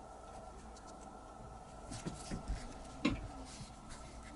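Light handling noises of small objects: a few soft clicks and scrapes from about two seconds in, with one sharper knock about three seconds in, over a steady faint hum of room tone.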